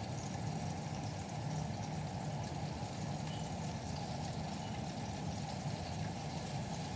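Chicken pieces frying in a pan of hot oil, a steady, even sizzle.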